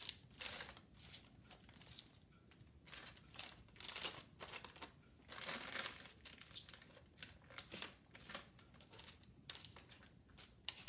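Faint, irregular crinkling and rustling as a spoon spreads powdered-sugar-coated corn Chex cereal pieces across parchment paper on a cookie sheet, coming in short scattered bursts.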